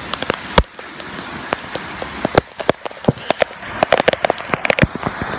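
Rain falling steadily, with many sharp, irregular taps of drops striking close by, thickest in the second half.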